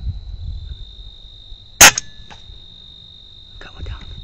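A single sharp shot from an FX Impact M3 .357 PCP air rifle about two seconds in, followed by a few small clicks and some rustling near the end. A steady high whine runs underneath throughout.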